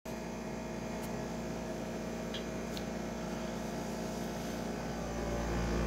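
Dehumidifier running with a steady, really loud hum and a low rumble from its pump, the rumble swelling a little near the end.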